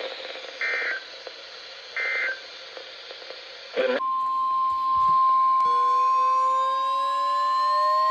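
Three short bursts of SAME digital data warble over weather-radio static, the end-of-message code of an emergency alert, then a click about four seconds in and the steady 1050 Hz NOAA Weather Radio warning alarm tone that announces the next warning. Fainter rising whistles sound under the tone from about halfway through.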